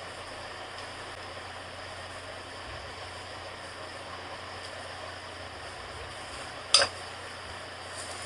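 Steady background noise, with one sharp clink about seven seconds in: the spatula striking the porcelain mixing bowl as cake batter is folded.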